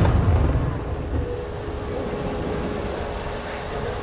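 Low rolling boom of an aerial firework shell burst, echoing and fading over about the first second, with a smaller thud about a second in, then steady background noise.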